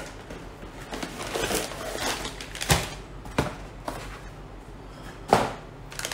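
Cardboard mailer box and padded mailing envelopes handled on a table: card and paper rustling, with a few sharp knocks as the packets are set down, the loudest about five seconds in.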